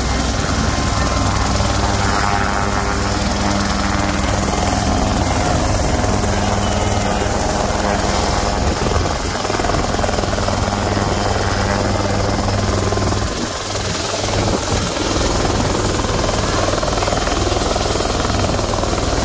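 Small homebuilt single-seat helicopter hovering close by: its engine and rotor run as a loud, steady drone. The sound eases briefly about two-thirds of the way through.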